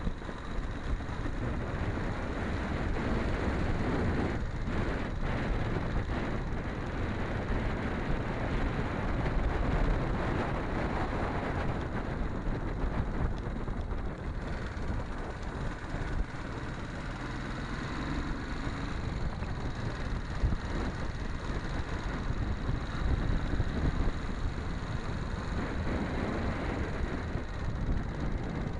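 Yamaha XT250 trail bike's single-cylinder four-stroke engine running as it rides along a road, mixed with wind noise on the microphone.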